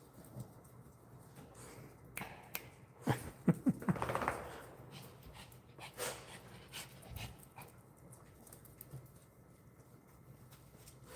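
A dog making brief short vocal sounds about three to four seconds in, amid scattered light clicks and rustles.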